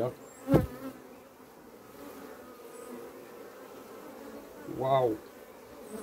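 Honey bees buzzing around an open wooden hive as its frames are worked. A sharp knock of the hive tool on the wooden frames comes about half a second in, and a brief louder rising-and-falling buzz about five seconds in.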